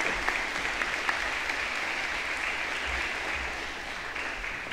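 A small seated audience applauding, with separate claps audible at first, dying away near the end.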